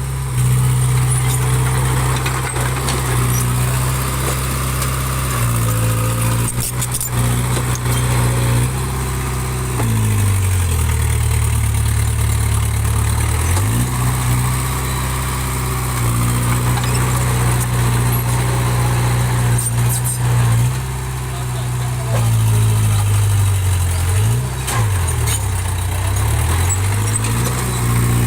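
Heavy diesel engine of earthmoving machinery running steadily, its pitch sinking and holding low for a few seconds about ten seconds in, then dipping again near the end before picking back up: the engine bogging under load and recovering.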